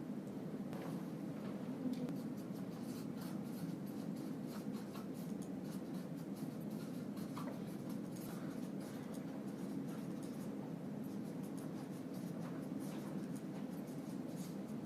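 Writing by hand: many short scratching strokes of a writing tool on a surface, over a steady low background hum.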